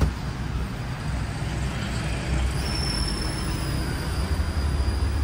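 Ride noise inside an open tuk-tuk taxi on the move: a heavy, fluctuating low rumble of engine and wind over the hiss of traffic. A faint high whine comes in about halfway through.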